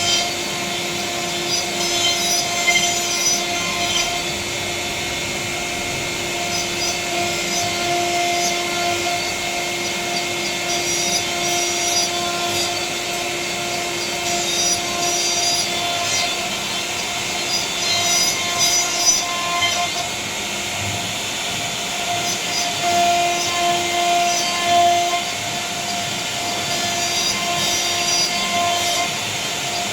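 CNC router spindle running steadily as the bit cuts into a panel, a constant hum with a high hiss and frequent short flurries of cutting noise.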